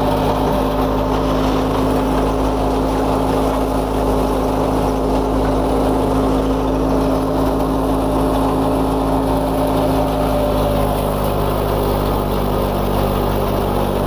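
A tractor-powered wheat thresher running steadily: the tractor's diesel engine turns the threshing drum and fan through the PTO shaft and belts, a loud, even mechanical drone that does not let up.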